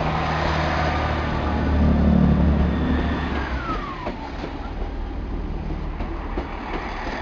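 Class 166 Turbo diesel multiple unit pulling away under power, its underfloor diesel engines throbbing loudly and at their loudest about two seconds in. The engine sound falls away after about three and a half seconds, with a brief falling squeal, and lighter clicking and rushing follow as the carriages roll past.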